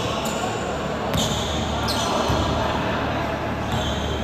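Basketball bouncing on a hardwood gym court, with a few dull thuds and short, high squeaks from players' shoes on the floor.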